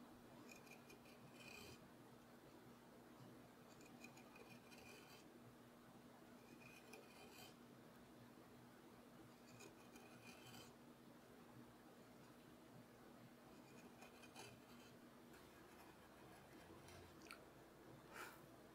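A 3 mm carving tool slicing grooves in walnut by hand. The short cutting strokes come a couple of seconds apart, each a faint, crisp scraping hiss. A faint steady low hum sits under the first part.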